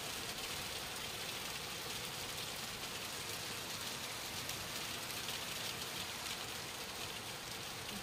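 Heavy rain pouring down in a steady, even hiss, drops pattering on a glass tabletop and a wooden deck.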